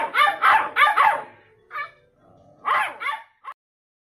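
Beagle puppies barking: a quick run of about four high barks, then a few shorter, spaced barks. The sound cuts off suddenly a little past halfway.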